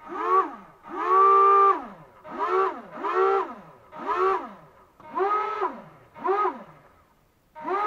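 Two small propeller motors from a wall-climbing toy car, mounted on a foam RC plane, whining in short on/off bursts, about eight times. Each burst rises quickly in pitch, holds while powered, then falls as the propellers spin down. In some bursts two close pitches sound together, one motor turning faster than the other as when steering.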